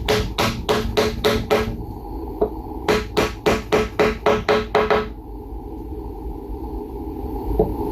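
Hammer tapping glued oak bow ties down into their mortises in a red oak slab, quick even strikes about four a second, each with a short ring. The strikes stop for about a second near two seconds in, then a run of about nine more follows and ends about five seconds in.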